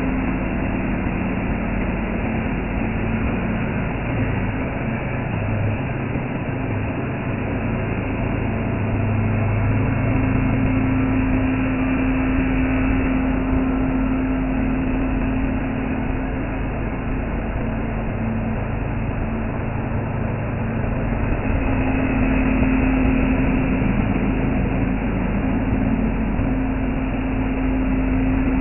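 CNC machine running steadily, its motor hum holding one pitch and growing louder twice over a constant mechanical noise.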